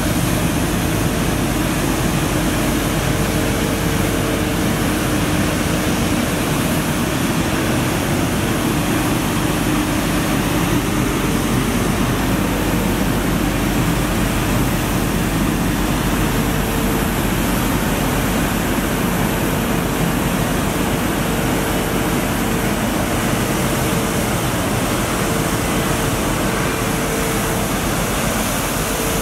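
Mercedes-Benz Arocs 1833 street sweeper working: engine, suction system and rotating brushes running, water spraying from its nozzles. A loud, steady rushing noise with a constant hum beneath it.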